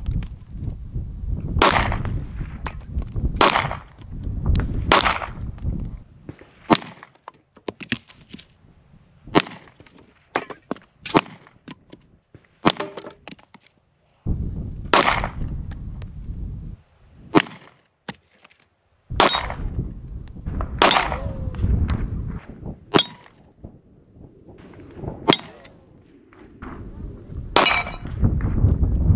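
Glock 30S compact .45 ACP pistol fired in a slow string of single shots, mixed with metallic clangs and rings of bullets striking steel and other targets.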